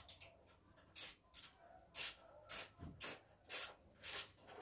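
Ratchet wrench being worked in short strokes, giving a brief burst of clicking about twice a second as a bolt is turned.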